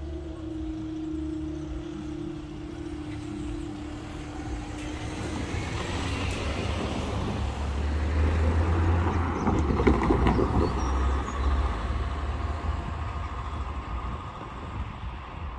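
Road traffic on the level crossing: a steady hum for the first five seconds, then vehicles driving over the crossing, growing louder to a peak about ten seconds in and easing off.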